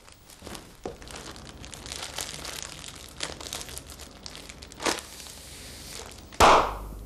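Clear plastic bag crinkling as it is handled and blown up like a balloon, then burst with a single loud pop about six and a half seconds in as it is clapped between the hands.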